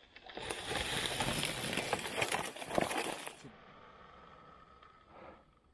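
An electric dirt bike pushing through mud and brush: a rough, crackling rush of noise with no engine note for about three seconds that cuts off sharply, leaving a faint steady background.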